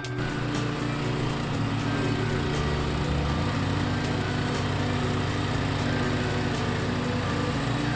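The portable bandsaw sawmill's small gasoline engine running steadily, its pitch shifting slightly about three seconds in.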